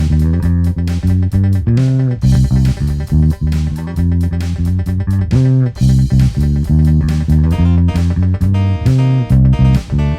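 Headless electric bass guitar played in a steady run of plucked notes, with a few notes sliding up or down in pitch.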